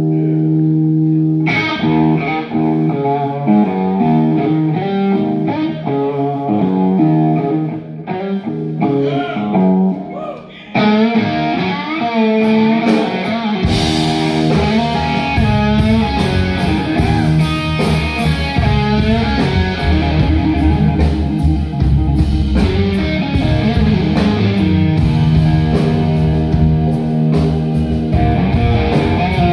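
Live electric blues-rock: a distorted electric guitar plays alone, sustained notes giving way to a bending lead line, and about fourteen seconds in the bass guitar and drum kit come in under it and the full band plays on.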